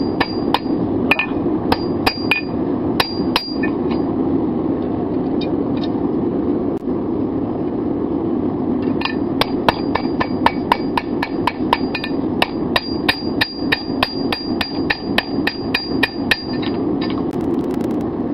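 Hand hammer striking a red-hot 5160 steel seax blade on an anvil: a run of blows, a few seconds with only odd blows, then a fast run of about three blows a second, the anvil ringing after each. A steady low rushing noise runs underneath.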